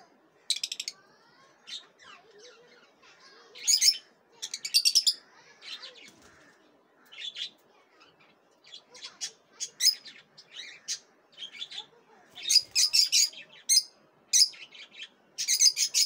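Lutino peach-faced lovebirds chirping in short bursts of rapid, high-pitched calls, which come more often in the second half.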